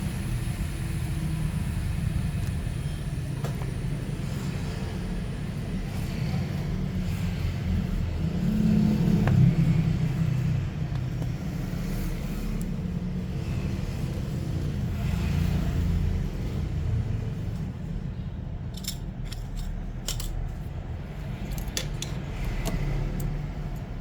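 A steady low rumble that swells about a third of the way in, with a few light clicks and taps near the end.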